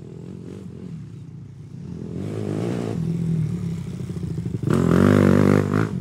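Motorcycle engine running and revving, building in level, with a louder rev that rises and falls about five seconds in.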